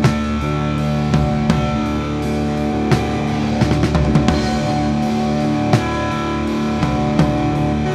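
Live rock band playing an instrumental passage: sustained electric guitar and bass tones with drum kit hits, no vocals.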